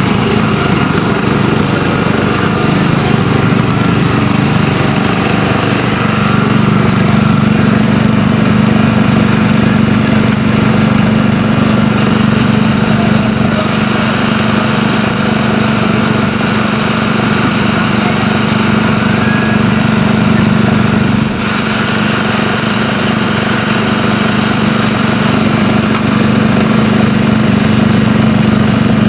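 Craftsman riding lawn mower's small engine running steadily at a constant pitch, with a brief dip in loudness about two-thirds of the way through.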